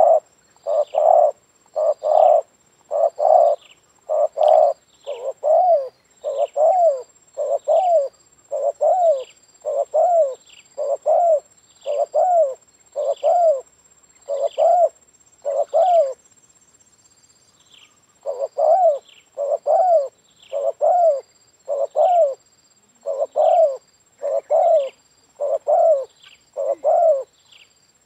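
Spotted dove cooing in a long run of short, evenly spaced coos, a little more than one a second, each dipping in pitch at its end. The run breaks off for about two seconds past the middle, then starts again.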